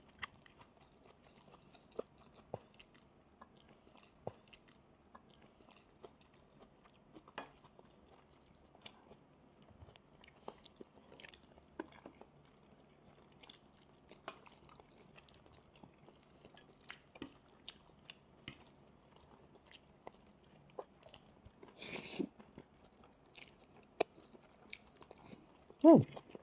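People eating noodles at a table: quiet chewing with scattered faint clicks of a spoon and fork on ceramic plates. A short hiss comes about three quarters of the way through, and a short, loud sound falling in pitch comes near the end.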